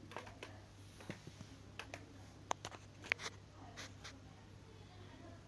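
Faint scattered small clicks and light taps, about ten in the first four seconds, over a low steady hum: handling noise of hands and a phone camera moving over the opened TV's board and metal chassis.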